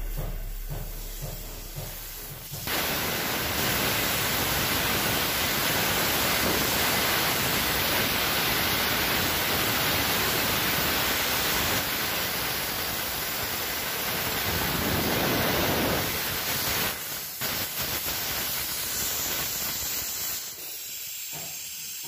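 Compressed air hissing steadily out of an opened air line on a truck's air system. It starts suddenly a few seconds in and cuts off sharply after about fourteen seconds, leaving a fainter, uneven hiss.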